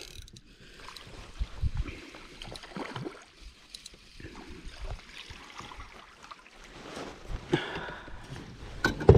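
Water lapping and splashing around a kayak as a white crappie is reeled in on light spinning tackle. Sharper splashes near the end as the fish breaks the surface beside the boat.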